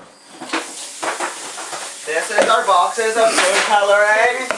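A soft, even hiss, then about two seconds in a high-pitched voice starts and carries on to the end.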